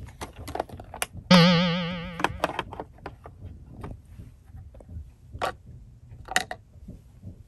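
A sudden loud warbling twang about a second in, dying away over about a second, followed by scattered small clicks and taps of plastic toy pieces being handled.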